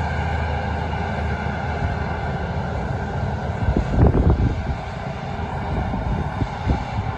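Steady drone of a John Deere self-propelled forage harvester working the field alongside a tractor and trailer, a constant engine hum with a high machine whine. From about four seconds in, gusts of wind rumble on the microphone.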